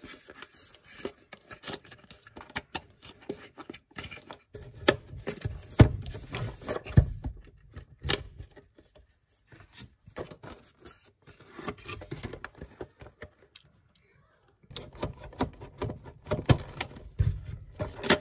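A cardboard box with a clear plastic insert being opened and handled: irregular clicks, taps and crinkles of stiff plastic and card, with a couple of short pauses.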